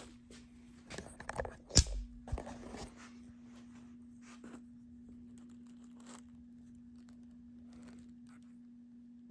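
Thick oil being rubbed by hand into an old dried leather jacket: the leather rustles and crinkles, with one sharp knock about two seconds in, then fainter intermittent rubbing over a faint steady hum.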